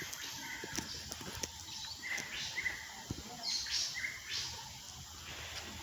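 Birds chirping in short calls, several in the middle stretch, over outdoor background noise with scattered light clicks.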